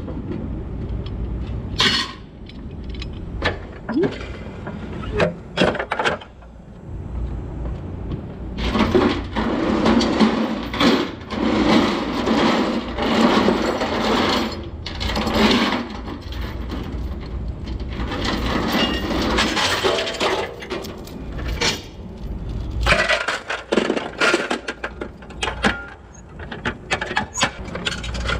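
Steel tie-down chain clanking and rattling on a flatbed trailer deck as it is handled and gathered up. Separate clanks come first, then a long stretch of continuous rattling and scraping as the chain is dragged, then more clanks near the end.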